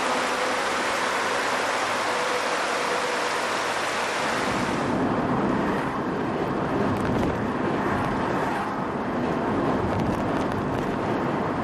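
A steady, bright rushing noise. About five seconds in it gives way to a lower, heavier drone of tyre and road noise from a car driving along a highway.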